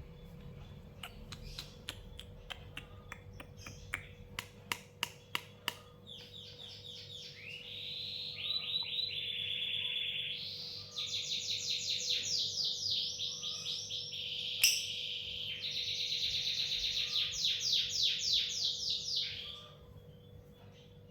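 Lovebird chattering in long runs of rapid, high, repeated chirps that stop suddenly near the end. Before the chatter there is a series of sharp clicks, about two a second at their loudest.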